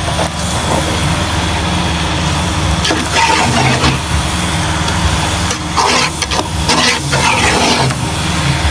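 Spatula stirring thick egusi soup in a metal pot, with a few bursts of scraping and squelching about three, six and seven seconds in, over a steady low hum.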